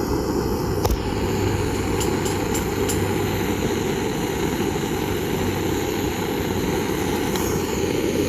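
Handheld butane gas torch running with a steady hiss, its flame jetting onto a coconut husk to kindle a clay-stove fire, with a few faint crackles about two to three seconds in.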